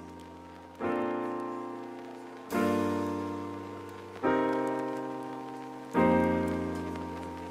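Background music of slow piano chords, a new chord struck about every second and three quarters, each left to ring and fade.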